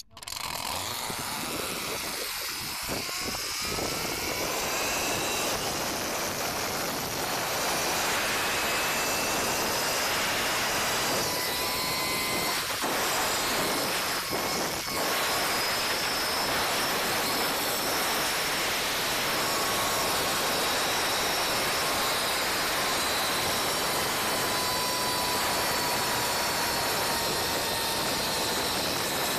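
Zip-line trolley running fast down a steel cable, with wind rushing over the head-mounted microphone: a steady loud rush with a faint whine from the trolley that rises in pitch over the first few seconds and slowly falls in the second half.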